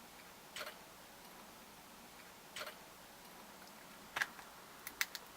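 A few faint, scattered clicks and short scrapes of a putty knife working at the Samsung Galaxy Note 2's screen, prying the LCD up from its adhesive; the clicks come closer together near the end.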